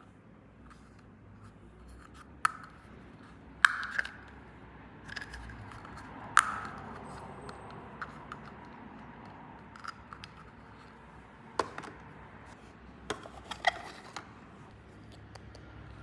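Small toy pieces being handled: sharp clicks and taps at irregular intervals, with light scraping and rustling between them.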